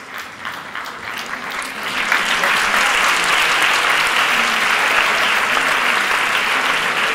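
Audience applauding: scattered claps that swell into full, steady applause about two seconds in.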